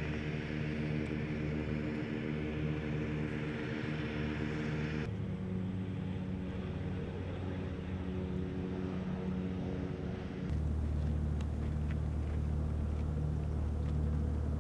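Steady engine hum, with abrupt changes in pitch and character about five and ten and a half seconds in.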